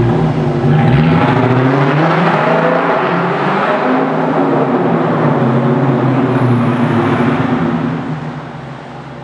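Dodge Challenger's 5.7-litre Hemi V8 exhaust through Dynomax Bullet mufflers with the resonators deleted, a loud raspy note. It climbs in pitch about a second in, holds, then drops away near the end.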